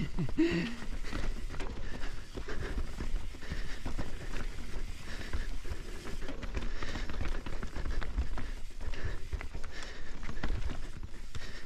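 Mountain bike rattling down a rocky, rooty trail: a continuous, irregular clatter of knocks and thumps as the tyres, suspension and chain take the rocks and roots.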